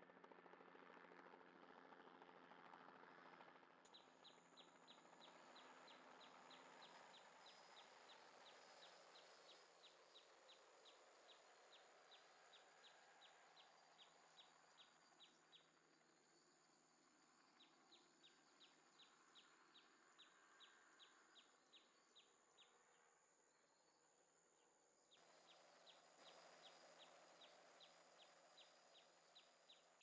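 Near silence, with a faint run of high, evenly spaced chirps, about three to four a second, that pause briefly midway and go on until near the end. A faint low hum is there in the first few seconds.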